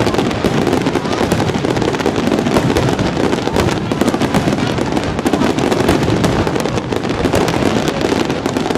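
A fireworks barrage of many aerial shells bursting at once, heard as a continuous dense run of overlapping bangs and crackles with no pause.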